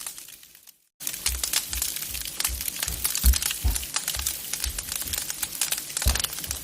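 Wood fire crackling in a fireplace: a dense run of sharp cracks and pops with a few dull low thumps. It starts about a second in, after a brief silence.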